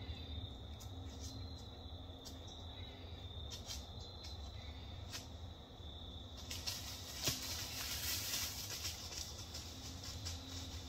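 Scattered light ticks, then a louder rustling and crackling of dry leaf litter from about six and a half to nine seconds in, with one sharp crack near the middle of it. A faint steady high-pitched trill runs underneath.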